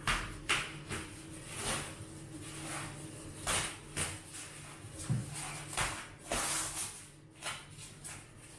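Bubble wrap and plastic packing on a cardboard box rustling and crackling in irregular strokes as hands pull at the wrapping.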